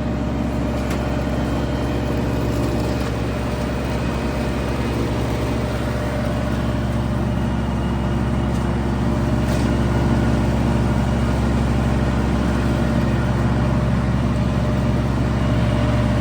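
Kubota G231 ride-on mower's diesel engine running steadily under load with the cutting deck engaged, mowing long, wet grass.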